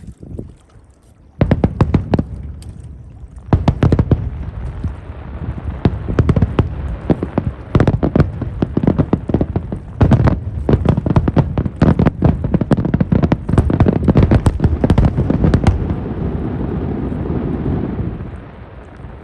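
A fireworks barrage: shells bursting in a rapid, dense run of booms and cracks that starts about a second in and goes on for some fifteen seconds. It then settles into a steady rumbling crackle that fades near the end.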